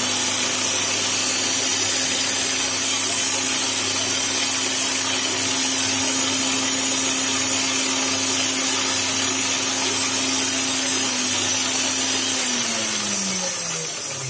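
Shivaki SMG 5151 meat grinder's brushed electric motor, driving its gearbox with no load, runs steadily with a hum and a hiss after a repair to its brush holder, and the motor stays cool, so it is no longer overheating. About twelve seconds in it is switched off and winds down, its pitch falling.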